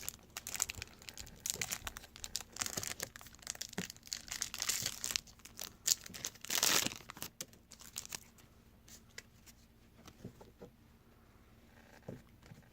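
Trading-card pack wrapper crinkling and tearing as it is opened. After about seven seconds it gives way to sparse small clicks of cards being handled.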